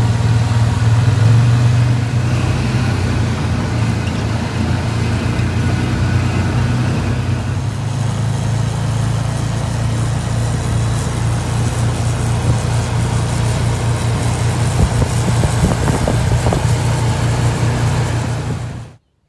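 Farm tractor engine running steadily under load while driving across a rough field, with a low steady drone and a few knocks. It cuts off suddenly near the end.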